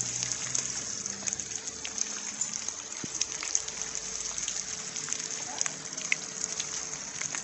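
Rain falling steadily, with many single drops ticking sharply close by.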